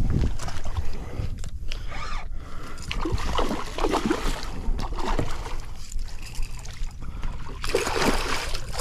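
A hooked redfish thrashing and splashing at the water's surface beside a boat, in irregular surges, over a steady low rumble.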